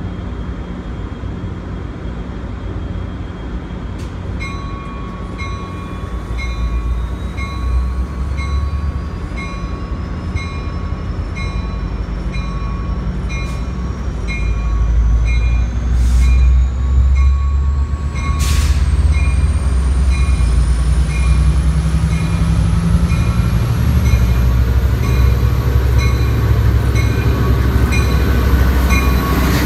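COASTER commuter-train diesel locomotive (MP36PH-3C #3002) approaching and pulling past, its bell ringing at an even pace from about four seconds in. The engine rumble swells loud about halfway through as it draws close, with two sharp clanks.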